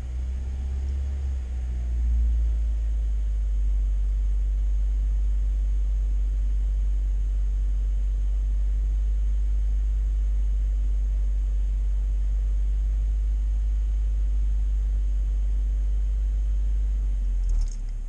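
UAZ Patriot engine heard from inside the cabin, a steady low rumble held at slightly raised revs to load it and bring the coolant up to the fan switch's cut-in temperature. The note rises about two seconds in, holds level, and falls back at the very end.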